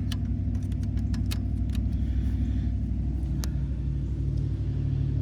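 A steady low rumble like a motor running, with a few light clicks and taps about a second in and again near the middle.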